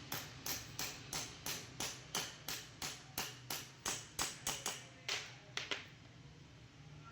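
Hammer blows in a steady rhythm, about three a second, with a short ring after each, stopping shortly before the end.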